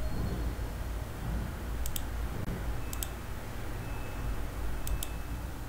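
Computer mouse button clicking three times, each a quick press-and-release double tick, over a low steady hum.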